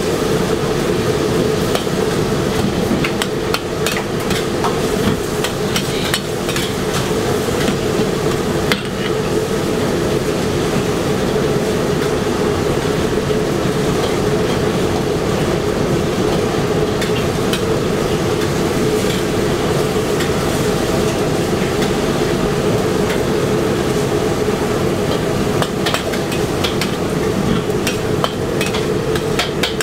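Metal spatula scraping and clanking against a steel wok as rice noodles are stir-fried, over the steady roar of a high gas burner flame.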